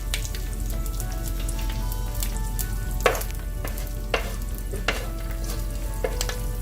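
Curry leaves and slit green chilies sizzling in hot ghee in a pan, with a utensil stirring and knocking against the pan a few times from about three seconds in.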